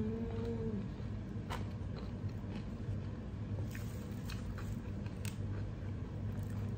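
Biting and chewing crispy fried chicken, with a few sharp crunches, after a short hummed "mm" at the start. A steady low hum runs underneath.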